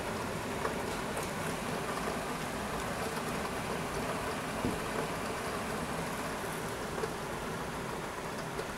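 Steady rain falling during a thunderstorm, an even hiss with a few faint ticks of nearby drops; no thunder.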